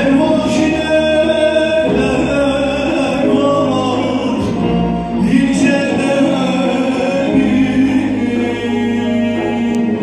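Turkish folk song sung live by male voices, soloist and choir, over a traditional folk ensemble of bağlama and oud.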